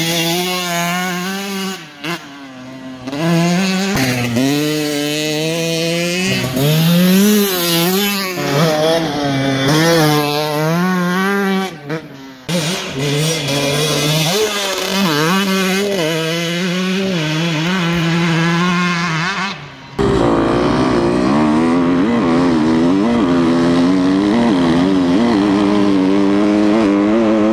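Dirt bike engines revving hard, the pitch climbing and dropping back again and again as the riders accelerate and shift gears. About twenty seconds in it switches to a bike heard close up from the rider's helmet, running more steadily, with wind rumbling on the microphone.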